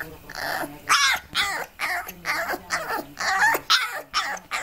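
Puppy yipping and howling in a quick run of short calls, each bending up and down in pitch, about two to three a second, starting about a second in.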